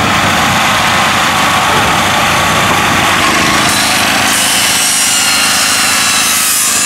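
Loud, steady small-engine running noise.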